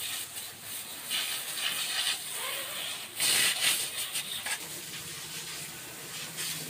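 High-pressure water jet from a power-wash gun hissing as it sprays the mud-caked underside of a tipper lorry's raised steel body. The spray turns louder for a moment about three seconds in, and a low steady hum joins near the end.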